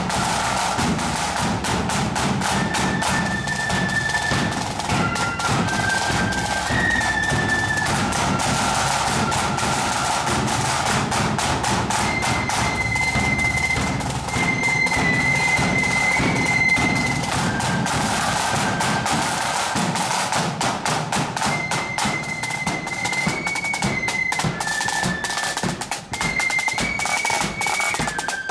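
Marching flute band playing: continuous rapid snare drumming and bass drum under a single-line flute melody of held notes stepping from pitch to pitch.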